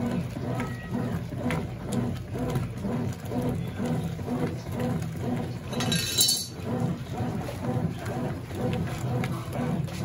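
Consul CWS12 top-load washing machine agitating during a pre-wash, its motor and wash action going in quick rhythmic strokes, about two a second. A brief sharp clink about six seconds in.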